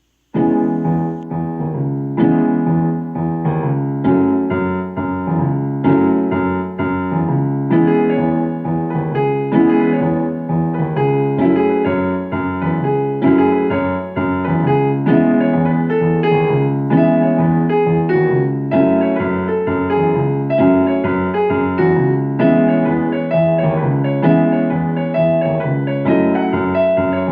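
Solo piano playing a steady, flowing piece of repeated chords and broken-chord figures, starting about half a second in.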